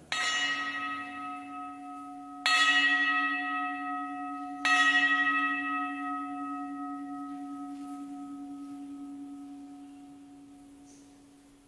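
An altar bell struck three times, marking the elevation of the host at the consecration. Each stroke rings on with a clear, steady pitch, and the last strike is the loudest. The ringing fades away slowly by the end.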